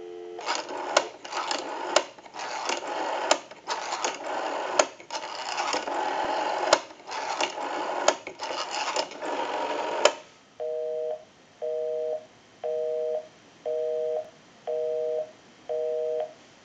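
Rotary dialing on a Western Electric 554 wall telephone heard over the phone line through an amplifier: about ten seconds of crackling line noise broken by many dial-pulse clicks and gaps. Then a busy signal sounds, a two-tone beep pulsing about once a second, because the number dialed is engaged.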